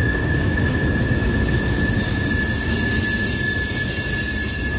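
Freight train cars rolling past: a steady low rumble of wheels on rail with a continuous high-pitched wheel squeal held on one pitch.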